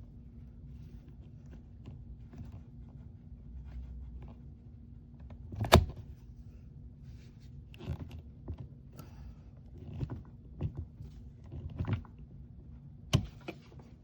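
A series of sharp clicks and knocks, seven or so spread irregularly, the loudest about six seconds in, over a low steady hum.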